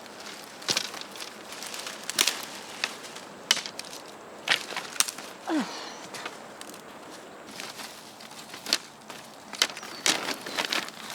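Irregular knocks, snaps and rustles of wooden poles and sticks being handled and stepped around in forest litter, with a short falling creak about halfway through.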